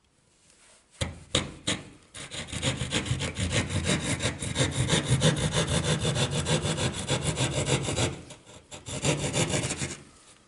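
Hand drywall jab saw cutting through drywall in rapid back-and-forth strokes. A few separate strokes come first, then a long steady run of sawing, a short pause, and a last burst of strokes before it stops near the end.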